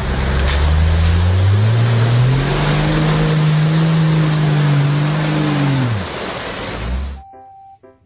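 Toyota off-road 4x4 on oversized mud tyres driving through mud. The engine revs up and holds over a loud rush of churning mud and tyre noise, then falls away about six seconds in. The sound cuts off about a second later.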